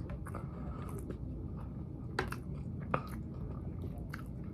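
A person chewing and biting into chicken wings close to the microphone, with wet mouth clicks and two sharper smacks about two and three seconds in, over a steady low hum.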